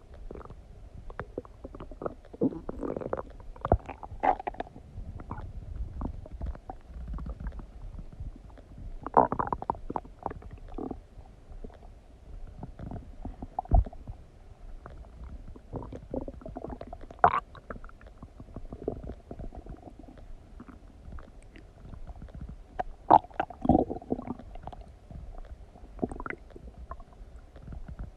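A human stomach and intestines gurgling and rumbling while digesting a meal of donuts: irregular squelching gurgles and short pops, with louder bursts about three, nine, seventeen and twenty-three seconds in.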